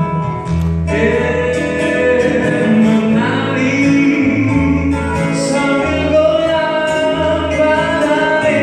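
Live song: men singing into microphones over a strummed acoustic guitar, amplified through the stage speakers.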